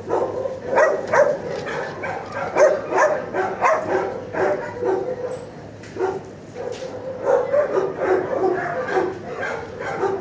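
Dogs barking over and over, a short bark every fraction of a second, thinning out briefly about halfway through.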